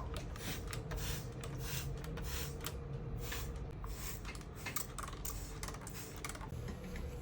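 A quick run of short, crisp scratching strokes, about three or four a second, from hand cleaning work on a brass samovar; they thin out near the end.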